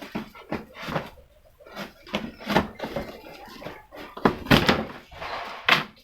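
Irregular knocks, thumps and rustles of a boxed burger grill with deep fryer and its packaging being handled and unpacked, the loudest bumps about four and a half seconds in and again near the end.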